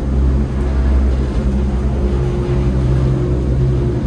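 Gondola cabin running through a cable-car station, heard from inside the cabin: a loud, steady low rumble with a steady hum over it.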